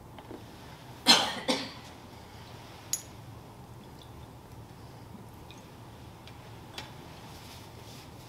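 Two coughs in quick succession about a second in, followed by a single sharp click.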